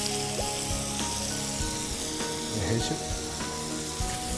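Sliced mushrooms sizzling steadily in a frying pan of hot olive oil and pancetta fat.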